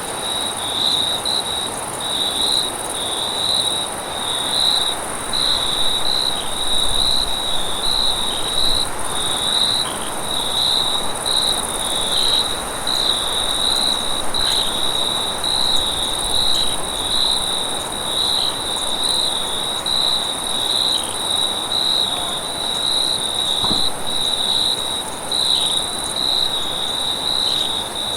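Night insect chorus: crickets chirping in a steady, even pulse about once or twice a second, over a continuous high, thin buzz of other insects.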